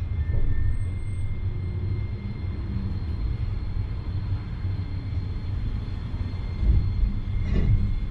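Iyotetsu streetcar running along street track, a steady low rumble of wheels and motor heard from inside the driver's cab, with a brief knock near the end.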